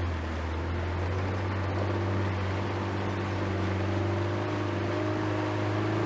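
Small motorboat's engine running steadily while the boat is under way, an even hum that rises slightly in pitch about two seconds in.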